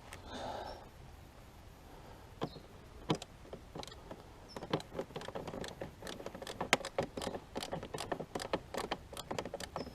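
Plastic body panels and their clips being pushed and fiddled into place by hand: a run of small irregular clicks and taps, a few at first, then many close together from about halfway through.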